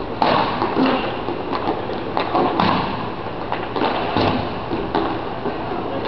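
Roller hockey play: a series of sharp clacks and knocks from sticks striking the puck and the rink floor, over a steady background din.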